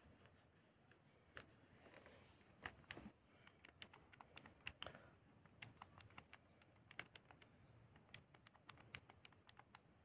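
Faint, irregular clicks of calculator keys being pressed, several a second, working out a cosine.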